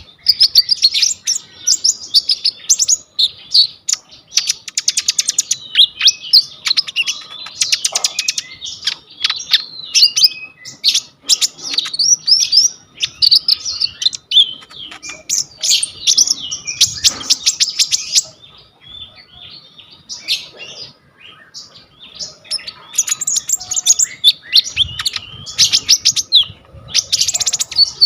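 A konin songbird singing continuously in a rapid, chattering song packed with imitated phrases of other birds. Fast rattling trills break in several times, and there is a short softer lull about two-thirds of the way through.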